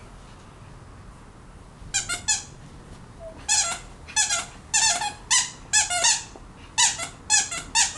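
Plush squirrel squeaky toys squeezed over and over: sharp, high squeaks in quick clusters of two or three, starting about two seconds in.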